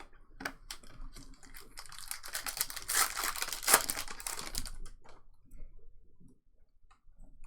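Foil trading-card pack wrapper being torn open and crinkled: a loud, rapid crackling stretch in the middle, with scattered sharp clicks before and after.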